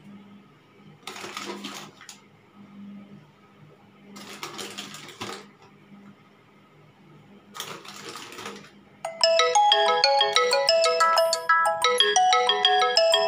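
Three short rustling scrapes of a plastic spoon scooping milk powder from a foil-sealed tub. About nine seconds in, a much louder, bright tune of quick, plinking notes like a phone ringtone starts and carries on.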